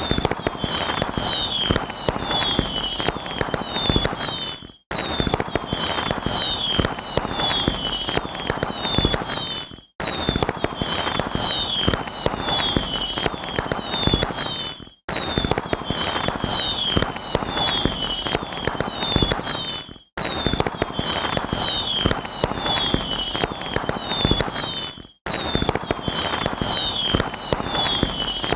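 A looped fireworks sound effect: dense crackling and popping with short falling whistle-like chirps. The same five-second stretch repeats over and over, each pass ending in a brief cut to silence.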